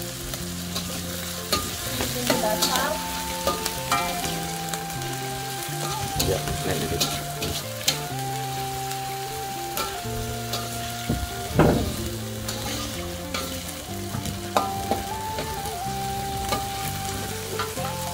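Spices of shallot and garlic sizzling in hot oil in a frying pan over a lowered flame, with a utensil scraping and clicking against the pan as they are stirred. A simple background melody of held notes plays over it.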